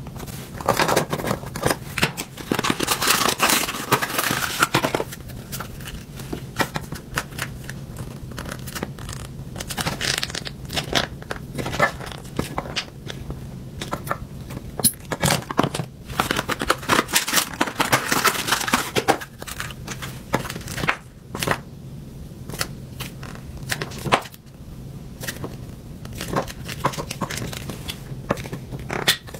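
Crinkling and crackling of a plastic toothpaste tube being handled and squeezed into a clear acrylic dispenser. It comes in spells, loudest in the first few seconds and again just past the middle, over a low steady hum.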